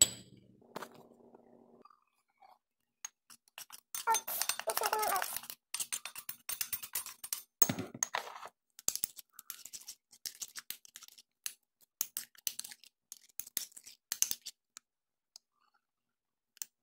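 Hands handling food containers at a kitchen counter. A plastic yogurt tub and its packaging rustle and crinkle for a second or so about a quarter of the way in. Near the middle there is a dull knock, then a run of short light clicks and clinks.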